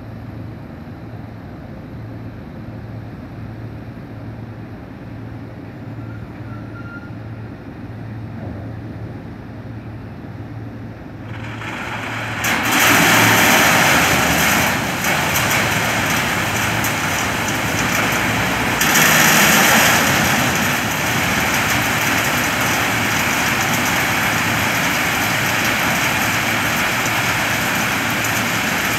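V10B diesel shunting locomotive's engine running with a steady low throb; about twelve seconds in, a loud, even rushing of crushed stone pouring from the loading chutes into a hopper wagon starts and continues, swelling twice.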